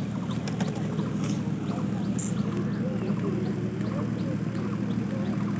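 Murmur of a large outdoor crowd with scattered distant voices over a steady low rumble, with small high chirps here and there.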